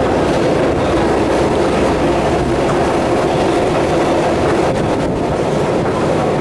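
Steady mechanical rumble and hum of a long metro escalator running, loud and even throughout.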